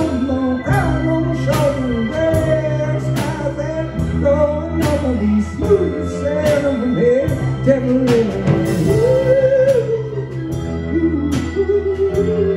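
A live band of electric guitar, drum kit and organ playing an upbeat number. A melody line bends and glides over sustained organ chords, with steady cymbal and drum hits.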